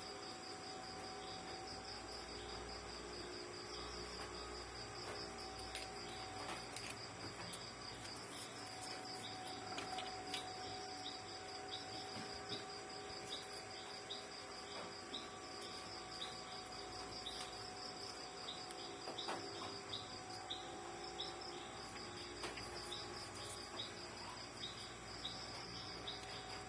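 Crickets chirping in a steady, fast-pulsing high trill, with a second, slower chirping joining about halfway through. Faint scattered clicks sound over it.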